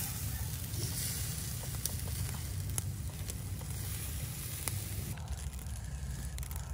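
Marinated water snake sizzling on a wire grill over charcoal, with a few sharp crackling pops.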